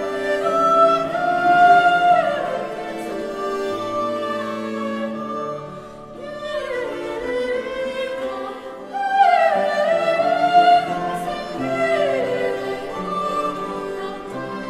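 Classical music in an operatic style: a singing voice over strings, with long held notes that slide from one pitch to the next.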